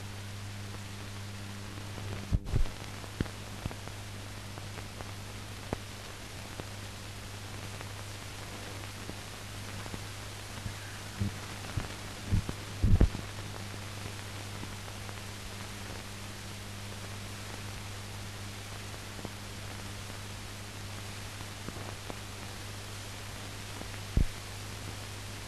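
Steady hiss and a low hum, with scattered clicks and pops, loudest about two seconds in, around thirteen seconds and near the end: the blank soundtrack of a silent archive film transfer.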